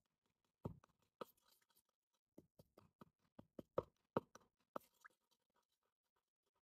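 Faint, scattered taps and scrapes of a small wooden spoon stirring a wet blue nila paste in a wooden bowl, about a dozen soft clicks, loudest around four seconds in.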